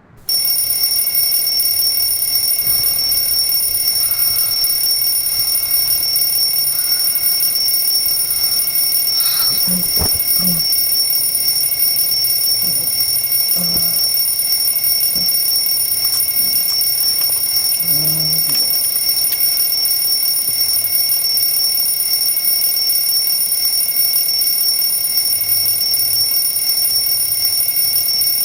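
Electronic alarm clock going off, a steady high-pitched tone held without a break, with a few faint soft knocks underneath.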